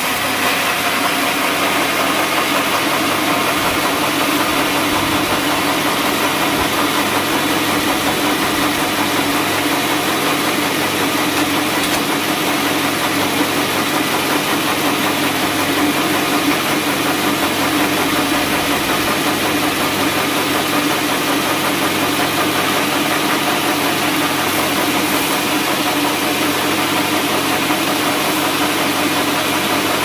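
Band sawmill running with its blade sawing through a teak log: a steady mechanical drone with a strong hum and a hiss over it.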